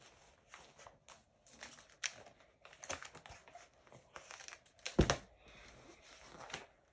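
Paper rustling and crinkling as a large picture book is held up and handled, with a single louder thump about five seconds in as the book is lowered.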